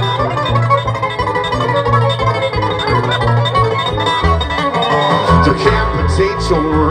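A bluegrass band playing an instrumental intro: fast picked banjo and acoustic guitar over a walking upright bass, with fiddle.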